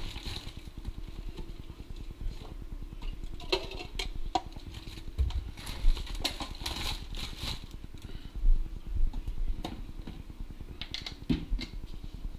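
Plastic pet-food bag rustling and crinkling as it is handled, with scattered clicks and knocks of cupboard and containers, over a low steady hum.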